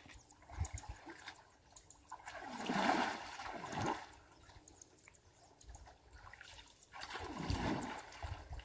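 Shallow canal water sloshing and splashing as someone wades and gropes through it to drive fish toward a net, in two longer surges about two seconds in and about seven seconds in, with a few soft knocks between.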